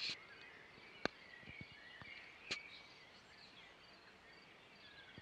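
Faint bird calls, short scattered chirps over a quiet background hiss, with two sharp clicks about one and two and a half seconds in.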